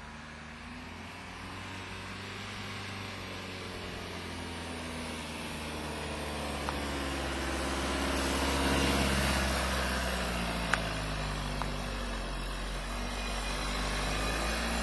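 Škoda Yeti 4x4's engine running as the car drives past close by, its pitch rising and falling with the throttle and its sound loudest about nine seconds in. A single sharp knock about eleven seconds in.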